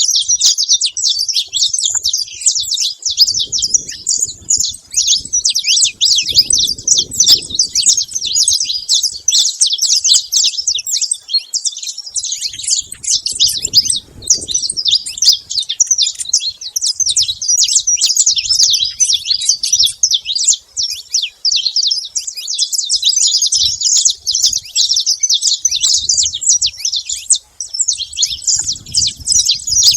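Saffron finches chirping and singing without pause: a dense stream of rapid, high-pitched chirps.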